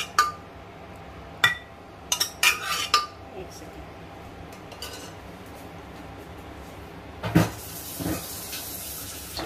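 A metal utensil clinking against dishes while mutton curry is served into a glass bowl. There are several sharp clinks in the first three seconds and a dull knock about seven seconds in.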